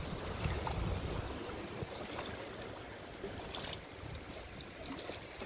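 Wind buffeting the microphone over the rush of river water, the rumble strongest in the first second. Scattered light clicks and rustling come from jacket and gear handling.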